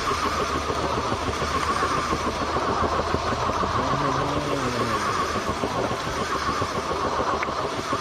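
A steady motor or engine drone, running evenly, with a faint voice partway through.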